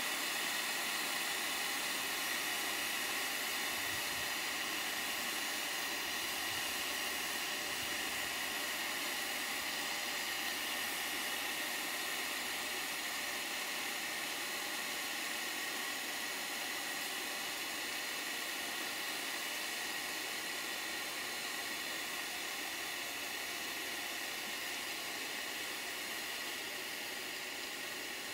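Live-steam 5-inch gauge model steam locomotive giving off a steady hiss of escaping steam, with no exhaust beats, slowly fading a little.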